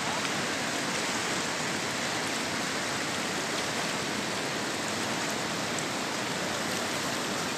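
Fast, silt-laden river rushing over rocks and gravel bars: a steady, even rush of flowing water.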